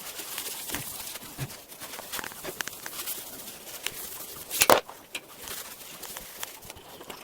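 Scattered clicks and knocks from handling treadmill parts and tools while the belt is being replaced, with one louder knock about two-thirds of the way through.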